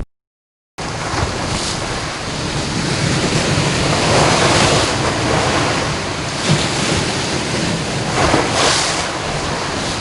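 Rushing water, a steady noise that starts abruptly about a second in and swells louder around four seconds in and again near the end, like surf washing in.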